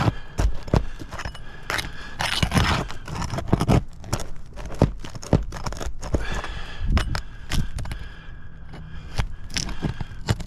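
Scraping and irregular sharp clicks of a tool worked up under a sealed asphalt shingle to pry out a roofing nail, an attempt that tears the shingle.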